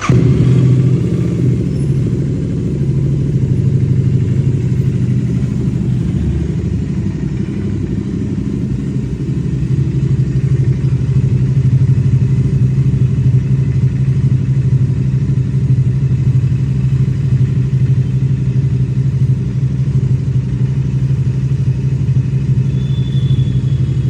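Motorcycle engine running steadily with an even, low note, coming in abruptly at the start.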